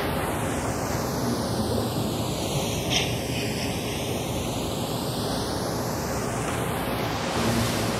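A steady, loud hiss like rushing air or surf, with a slow sweeping, phasing quality. There is a small faint sound about three seconds in, perhaps a shuffle or knock.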